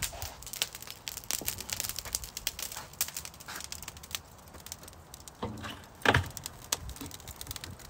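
Burning charcoal crackling and popping in a wire-mesh charcoal basket as it is lowered into a steel barrel smoker. About five and a half and six seconds in, two louder metallic clanks as the basket meets the drum.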